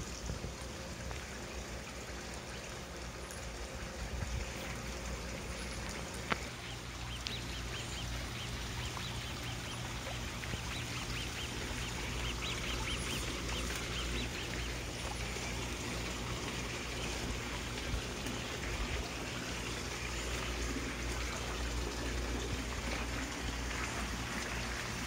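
Steady trickle of running water, with a series of short bird calls in the middle.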